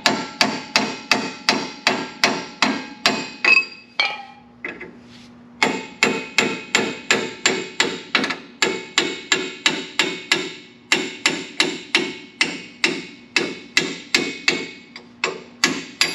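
Hammer striking a steel punch in quick ringing metal blows, about three a second, with a short break about four seconds in. The blows are driving a rusted, seized rear brake caliper slide pin out of a Jeep Wrangler's caliper.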